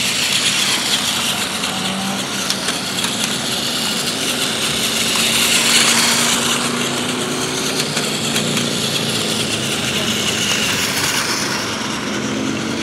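Plarail toy train's small electric motor whirring as it runs around its plastic track, with the wheels rattling along the track joints; it grows a little louder around six seconds as the train passes close.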